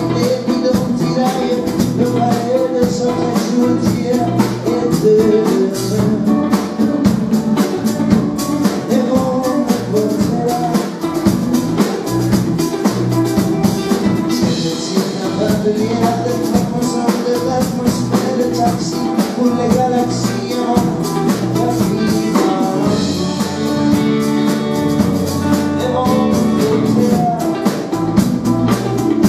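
Live rock band playing: two electric guitars, bass guitar and drum kit keeping a steady beat.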